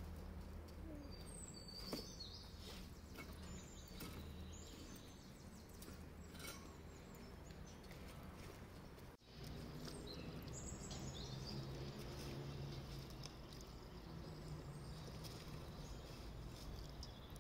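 Faint outdoor ambience: a low steady hum with short bird chirps scattered through it, and a few light clicks, the sharpest about two seconds in.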